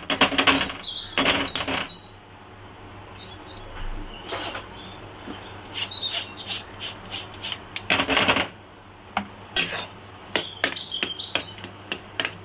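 Spatula scraping against a kadai as chhena is stirred and pressed over low heat, in several rough bursts, then rapid light taps and clicks of the spatula on the pan near the end.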